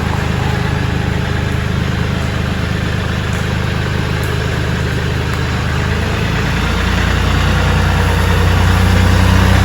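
Kioti CK3510SE compact tractor's diesel engine running steadily; about two-thirds of the way through its note changes and it gets louder.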